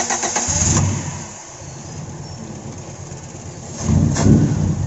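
Carbureted car engine being cranked by its starter for a moment and catching less than a second in, then running steadily, with a short rev about four seconds in. It starts quickly, a sign that its hard-starting fault is cured.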